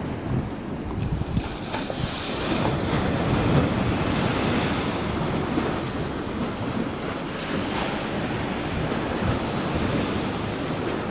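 Wind gusting across the microphone over choppy sea water washing against the shore, the gusts strongest a few seconds in.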